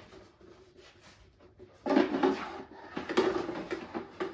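Hands handling the animatronic's plastic parts: quiet at first, then about two seconds in a burst of rustling with small clicks and knocks.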